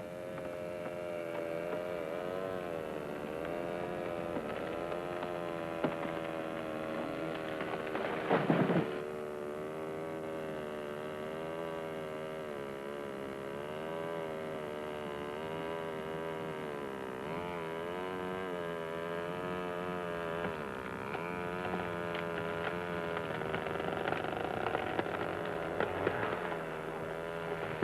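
Chainsaw engine running under load, its pitch wavering up and down as it cuts through a fallen tree trunk, with a brief louder burst about eight seconds in.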